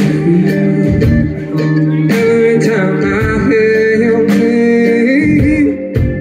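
Live rock band playing, with mandolin, electric guitar, bass guitar and drums and a wavering lead melody on top.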